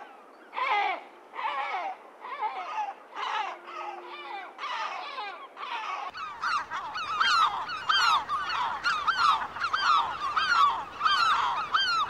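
Large gulls calling: a run of repeated cries that rise and fall in pitch. A second recording takes over about six seconds in, with louder, faster calls over a faint low background noise.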